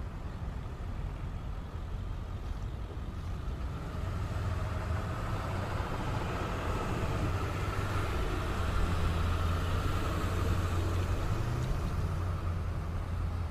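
Ceccato CSA-20 rotary screw air compressor running with a steady low hum that grows louder about four seconds in.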